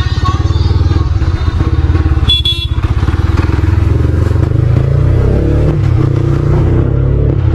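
Yamaha MT-15's single-cylinder engine running under way, its pulsing note climbing in pitch as the bike accelerates from about four seconds in. A short horn beep sounds about two and a half seconds in.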